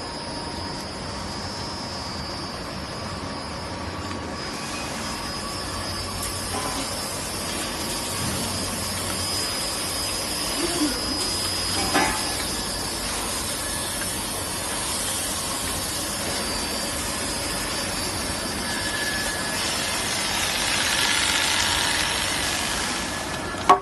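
Profile edge sanding machine running: a steady mechanical hiss with a thin high whine, a short knock about halfway through, and the hiss swelling near the end.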